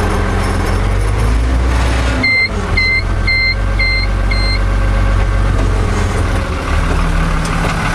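Fiatagri 100-90 tractor's diesel engine running steadily in the cab while the Claas round baler's tailgate is opened hydraulically. About two seconds in, the engine note changes and an electronic warning beeper sounds five short, high beeps about half a second apart.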